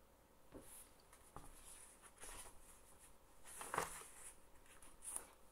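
Faint paper rustling and light handling noises of a picture book's page being turned, with one slightly louder rustle a little over two-thirds of the way in.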